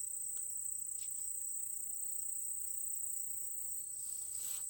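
Crickets chirping in one steady, high-pitched trill, with a few faint clicks.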